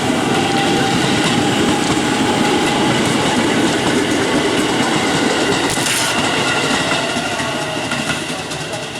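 A train running past close by, its wheels clattering over the rails with steady whining tones over the noise and a sharp clack about six seconds in; the sound starts to die away near the end.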